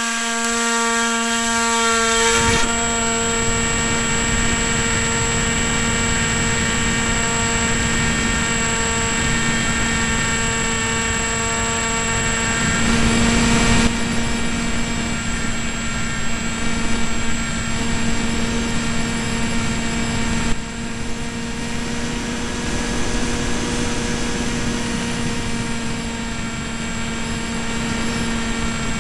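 Electric motor and propeller of an AXN Floater RC foam plane running steadily at high throttle, a constant high whine with many overtones, with air rushing past the onboard keychain camera's microphone.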